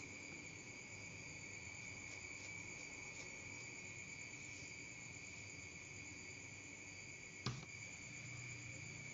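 A metal spoon clinks once, sharply, against a metal bowl of sago broth about seven and a half seconds in, with a few faint scoop clinks before it. Under it runs a steady, high-pitched, insect-like trill.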